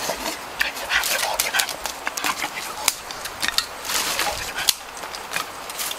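Dry sticks and leaf litter crackling and rustling as they are handled and set among stones, a quick, uneven run of sharp snaps and clicks.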